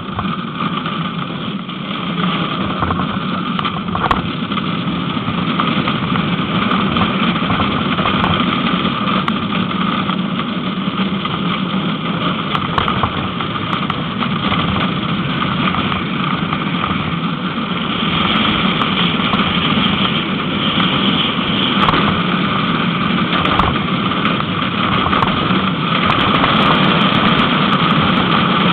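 Onboard a gravity-powered soap box cart rolling downhill: a steady rumble and rattle of its wheels on the road surface mixed with rushing wind, with occasional sharp knocks, growing a little louder over the run.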